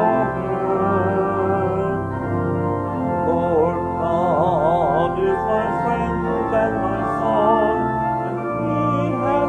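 Church organ playing sustained chords of a hymn, with voices singing along in a wavering vibrato.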